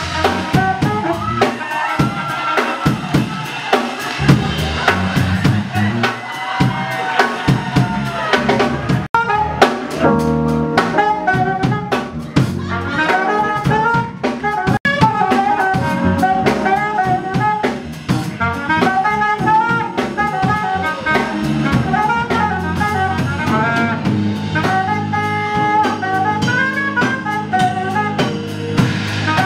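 Live jazz band playing: a saxophone carries the melody over a drum kit, electric bass and keyboards, with the drums keeping a steady beat. The music breaks off for an instant twice, about nine and fifteen seconds in.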